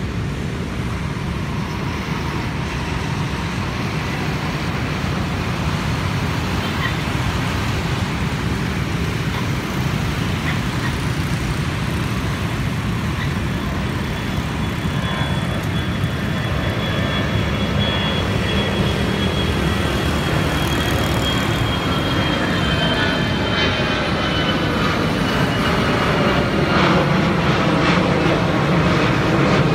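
Airbus A321-211's CFM56 turbofan engines at takeoff power as the jet climbs out overhead, a steady rumble mixed with road traffic that grows louder. In the second half a high fan whine slowly falls in pitch.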